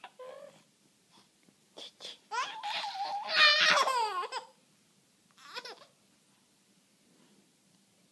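A baby babbling and squealing excitedly, with a long run of high, rising and falling squeals from just past two seconds until about four and a half seconds, and a short squeal near five and a half seconds.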